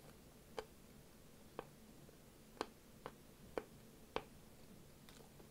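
Wet mouth clicks and lip smacks from chewing fried rib meat with the mouth closed: six sharp clicks about a second apart or less.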